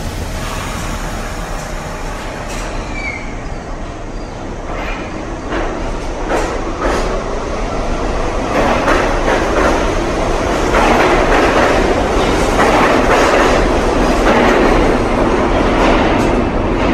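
An R62A New York City subway train pulls out of the station and picks up speed. The rumble grows louder, and the wheels clack over rail joints more and more often as it goes.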